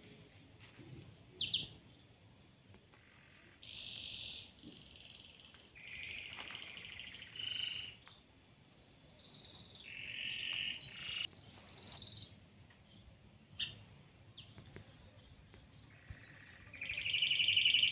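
Caged songbirds singing: a string of separate whistled phrases and chirps, some sliding in pitch. A louder, fast trill starts about a second before the end.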